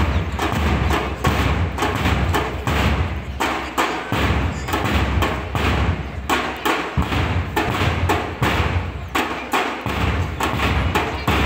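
March music led by a steady drum beat, about two to three beats a second, over a deep bass line that shifts note every few seconds.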